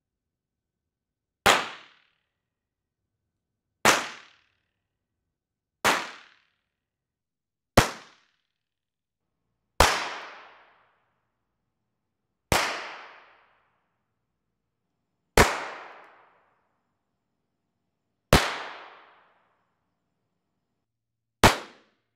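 A blank-firing starter's pistol fired nine times, each sharp crack followed by the room's reverberation dying away. The tails are short on some shots and last about a second on others. Each shot is an impulse for capturing the acoustic response of the room it is fired in.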